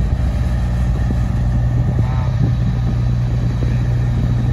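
Freight train creeping slowly on the move, with a steady low diesel locomotive rumble and a short squeal about two seconds in.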